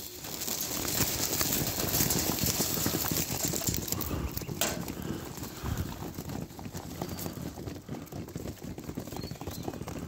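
A flock of pigeons pecking scattered grain off the floor of their cage: rapid, irregular tapping and clicking of many beaks, a little busier in the first few seconds.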